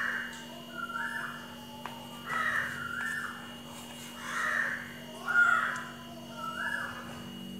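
Crows cawing repeatedly, about once a second, with one louder caw a little past the middle, over a steady low hum.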